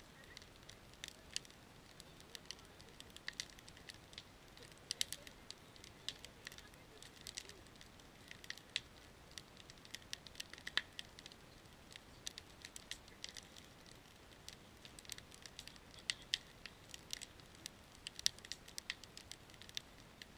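Campfire of stacked split wood crackling as it catches, with irregular sharp pops and snaps several times a second over a low hiss.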